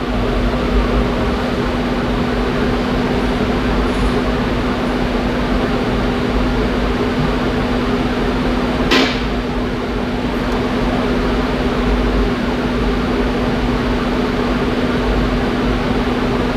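Electric engine cooling fan of a 2014 Infiniti QX60 running steadily with a constant hum, switched on by the engine computer during reprogramming and pulling the battery voltage down. One short click sounds about halfway through.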